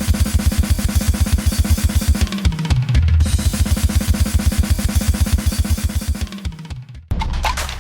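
Music with fast, pounding drums: a rapid kick-drum pattern over a low bass line that drops in pitch twice. Just before the end it breaks off and a sparser section of clicking percussion starts.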